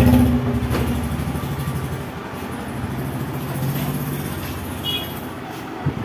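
A large road vehicle's engine running with a low, rapid throb. It eases after the first second and swells again around three to four seconds in. A short high chirp sounds about five seconds in.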